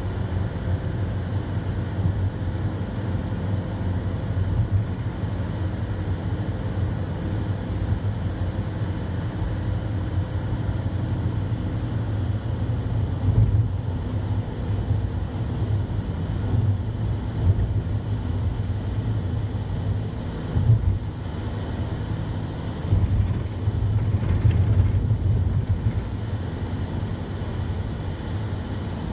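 Steady low rumble of a vehicle travelling along a road, engine and road noise, with a few louder swells.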